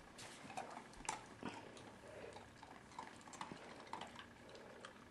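Bernese Mountain Dog puppy moving about, her claws clicking and tapping faintly and irregularly on a hardwood floor.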